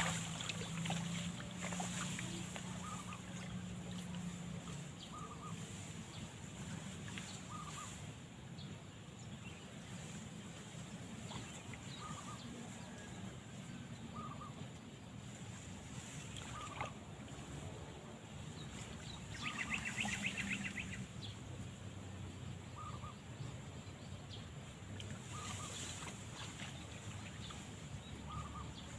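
Faint outdoor ambience with short bird chirps repeating every few seconds, a brief rapid trill about two-thirds of the way through, and a few scattered soft clicks and rustles.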